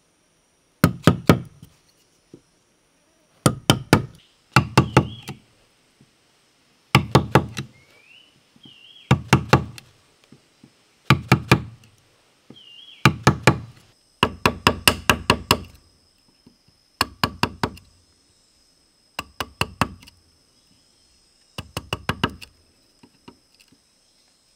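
Quick runs of hard knocks, three to six strikes at a time, repeating about every two seconds, like wood being struck while working.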